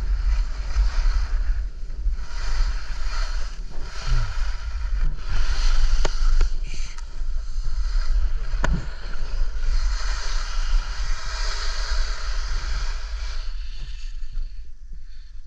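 Skis scraping and hissing across the snow in a run of turns, coming in surges every second or two, with wind rumbling on the microphone. The scraping eases off near the end.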